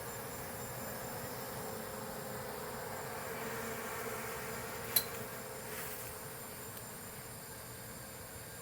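Honeybees buzzing around a hive as stragglers linger outside at dusk, with a steady hum, over a steady high chorus of evening insects. A single sharp click about five seconds in.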